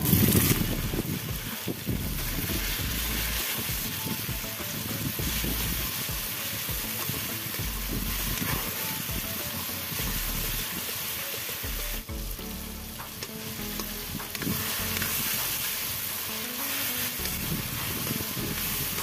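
Chopped tomatoes dropped into hot oil and onions in a steel kadai, the sizzle flaring up at the start, then frying steadily as a metal spatula stirs and scrapes the pan.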